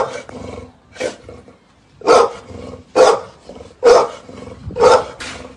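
A large pit bull-type dog barking, about one bark a second, six barks in all.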